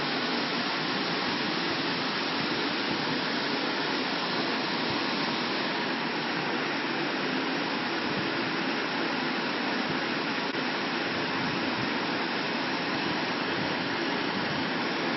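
Steady, unchanging rushing noise of machine fans or a blower running.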